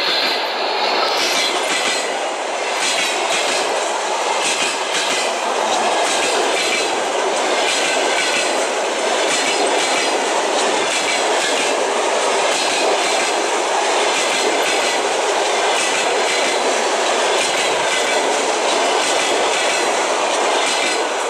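Passenger coaches of a train rolling past at speed, a steady rush of wheels on rail with the clickety-clack of wheels crossing rail joints.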